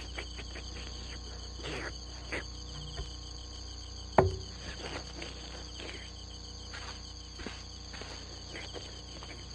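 Steady chorus of crickets chirping, with scattered short soft sounds and one sharper short sound about four seconds in.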